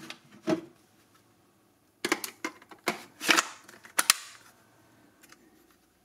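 Sharp hard-plastic clicks and knocks from a Silvercrest cordless stick vacuum's body being handled and turned over around its battery compartment, most of them bunched about two to four seconds in.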